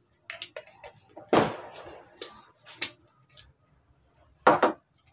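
Spice shaker shaken and tapped over a pot: a run of sharp clicks and rattles, with two louder knocks, one about a second and a half in and one near the end.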